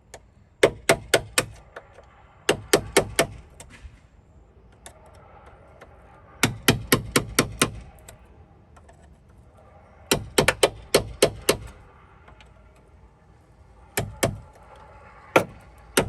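Hammer striking a flathead screwdriver driven into a seized plastic Jeep JK door hinge liner, folding the liner in to break it free of the corroded steel hinge. Sharp metal taps come in four short bursts of about five a second, followed by two single blows near the end.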